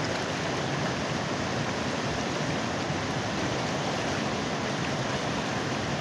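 A shallow river flowing, a steady, even rush of water.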